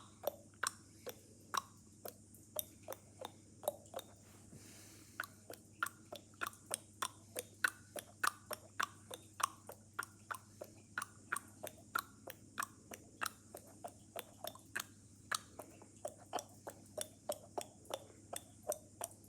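A person making a long run of short, sharp clicking noises, about three a second, each click at a slightly different pitch that wanders up and down. The clicks pause briefly about four seconds in, with a soft hiss, then carry on.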